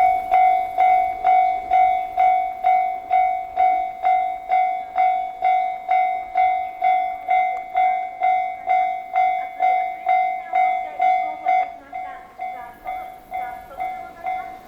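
Japanese level-crossing warning bell ringing in a steady, even rhythm of about two strikes a second. About 12 seconds in it gets quieter and the strikes become less regular.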